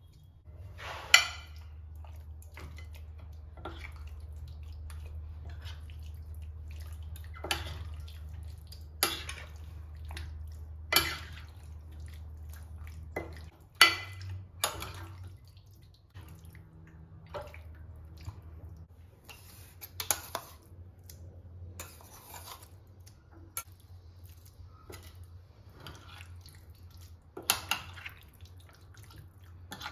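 Metal fork stirring raw chicken in marinade in a glass dish: wet squelching with sharp clinks of the fork against the glass every few seconds. A low steady hum runs under the first half and stops suddenly about halfway through.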